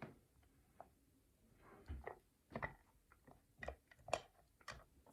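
Faint, scattered clicks and taps of a hook pick working the pins of a pin-tumbler challenge lock under light tension, with the core held in a deep false set.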